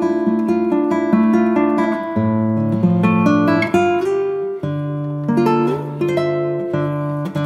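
Background music of a plucked acoustic guitar, picking a melody of quick notes over lower bass notes.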